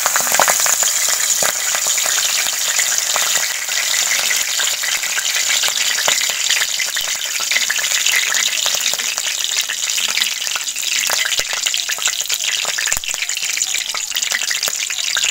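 Curry leaves frying in hot coconut oil in a kadai for a tempering: a steady sizzling hiss dotted with many sharp crackles and pops.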